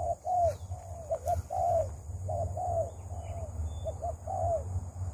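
Spotted dove (terkukur) cooing in repeated phrases, each two short coos followed by a longer arched coo, about three phrases in all. A steady low rumble runs underneath.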